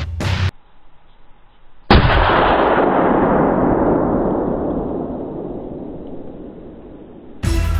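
A single loud gunshot about two seconds in, followed by a long rolling echo that slowly fades away over about five seconds. Music cuts off just before it and starts again near the end.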